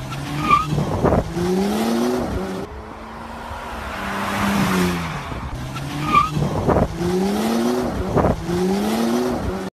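Bentley Bentayga SUV accelerating hard, its engine note rising in pitch again and again as it runs up through the gears. About halfway through, a swell of road and wind noise comes as the car sweeps past.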